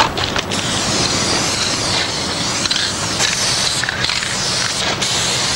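Aerosol spray-paint can hissing in a long spray, with two brief breaks in the last couple of seconds.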